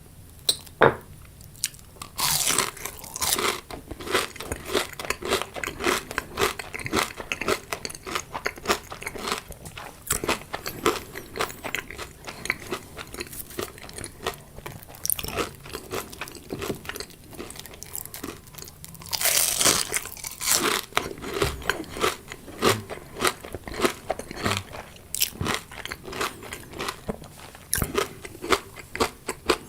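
Close-miked chewing of crunchy food: rapid crackly crunches, with louder bites about two seconds in and again around nineteen seconds.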